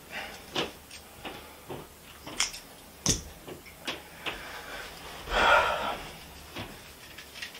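Small irregular clicks and taps from hands handling a small tool. About five and a half seconds in comes a short, breathy rustle.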